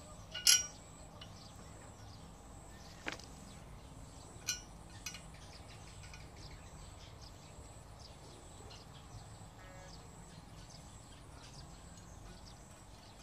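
A few short metallic clicks and clinks from fitting screws or bolts to a steel satellite-dish mounting bracket, the loudest and most ringing about half a second in, with smaller ones near three, four and a half and five seconds. The rest is faint background.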